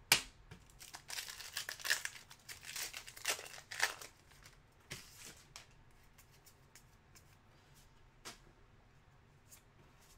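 Foil wrapper of a trading-card pack being torn open and crinkled, starting with a sharp click and lasting about four seconds, followed by a few faint clicks as the cards are thumbed through.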